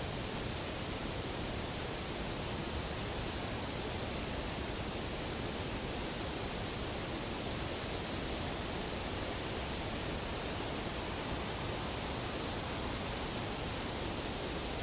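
Steady, even hiss with no knocks, howls or other distinct events: the background noise of an outdoor field recording.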